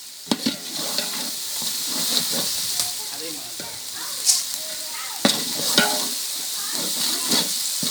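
Food frying in hot oil in a cooking pot, sizzling steadily, while a spoon stirs it and knocks against the pot several times.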